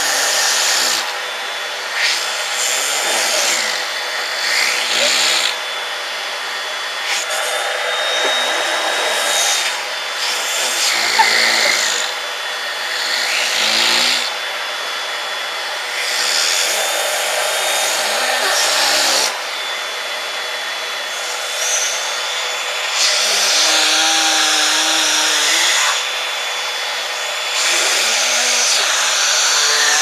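Vacuum cleaner running with a steady high motor whine, its air rush stepping louder and softer every few seconds as a toddler's mouth covers and uncovers the end of the hose. Short hums from the child come through now and then.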